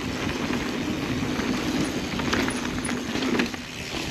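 Mountain bike rolling fast down a dirt singletrack trail: steady rushing tyre and wind noise, with scattered clicks and rattles from the bike over bumps, easing briefly near the end.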